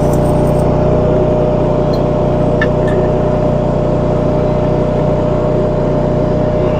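An engine running steadily at a constant speed, with a couple of faint clicks about two and a half seconds in.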